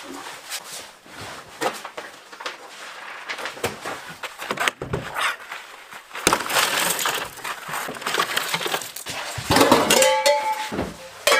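Quick succession of knocks, clatters and crunching noises, with a longer crashing stretch in the middle and a few ringing, clanging hits near the end.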